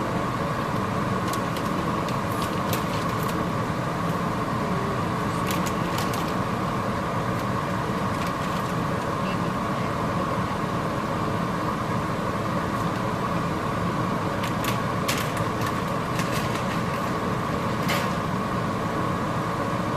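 Steady whirring hum with a hiss over it from a stovetop where a pan of beef is cooking, broken by a few sharp clicks early on, around six seconds in, and again between fifteen and eighteen seconds.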